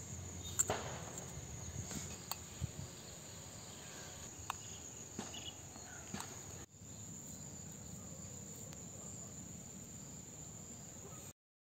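Steady high-pitched chorus of field insects, with a few light taps scattered through the first half. The sound cuts off abruptly near the end.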